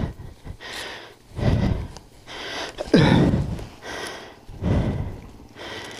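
A person breathing hard and panting close to the microphone, about one loud breath a second, with one louder breath about halfway that falls in pitch.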